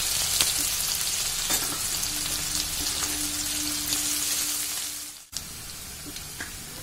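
Sliced onion sizzling loudly in hot oil in a metal wok, with a spatula clicking and scraping against the pan as it is stirred. About five seconds in the sizzle drops suddenly and goes on quieter.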